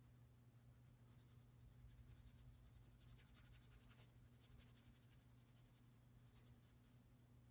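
Faint scratching of a crayon being rubbed back and forth on paper, coloring in an area, clearest a few seconds in, over a low steady hum.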